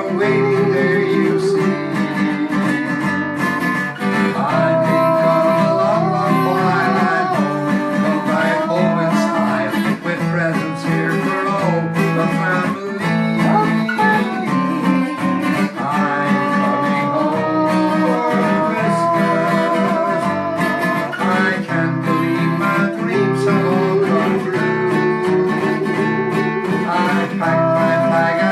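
Acoustic guitar playing an instrumental passage, strummed chords under a moving melody line.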